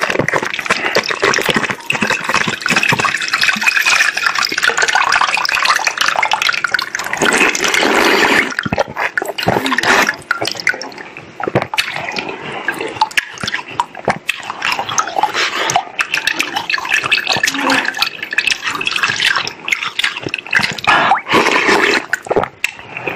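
A thin plastic water bottle crackling and crinkling as it is squeezed and peeled off the frozen block of ice inside, with wet cracking and dripping. The crackling thins out after about ten seconds into scattered cracks and drips as the bare ice block is handled, and the ice is bitten near the end.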